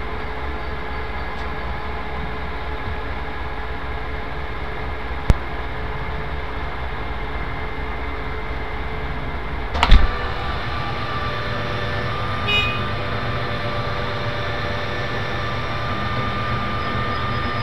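Truck-mounted knuckle-boom crane running, its engine and hydraulics making a steady mechanical drone. A sharp click about five seconds in and a loud knock near ten seconds; after the knock a steady whine joins the drone as the boom swings a load of roofing material.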